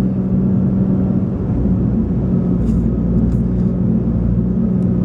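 Car engine and road noise heard from inside the cabin while driving slowly: a steady low hum with a constant drone, and a few faint clicks around the middle.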